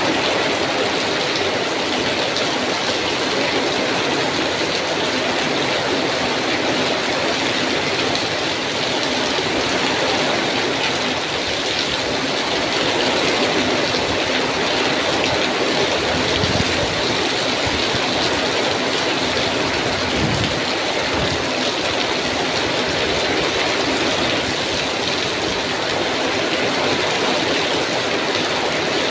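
Heavy rain pouring steadily, with a few short low thumps about halfway through.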